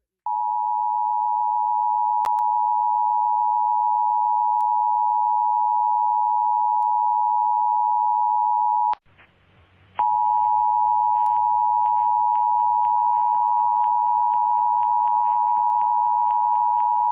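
Emergency Alert System attention signal, the steady two-tone 853 and 960 Hz alert tone, sounding for about eight and a half seconds and cutting off sharply. After about a second of faint hiss it sounds again for as long, this time over a hissy background with a low hum and faint extra tones.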